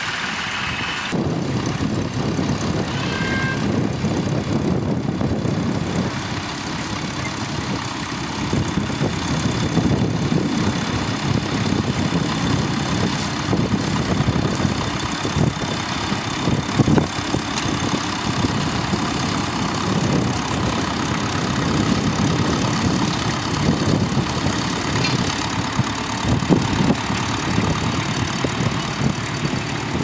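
Vintage Massey Ferguson tractor engine running steadily under load while pulling a plough through stubble, with a change in the engine sound about a second in.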